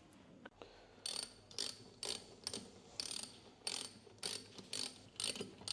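Ratchet spanner clicking in short strokes about twice a second, starting about a second in, as nuts are run down on the bolts that hold a balance weight to the crankshaft.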